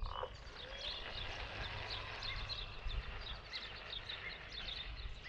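Small birds chirping over and over, faint, over a low steady rumble.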